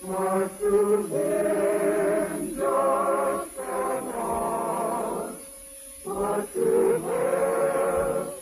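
A choir singing sustained, wavering phrases with short breaks and a brief pause about five and a half seconds in, with the dull, narrow sound of an old radio recording.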